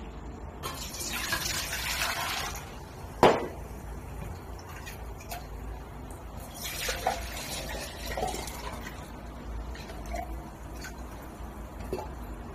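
Water poured from a glass measuring beaker into a stainless steel tray for about two seconds, followed by a sharp knock as the glass is set down. Later there is a second, shorter splash of pouring water and a few light knocks.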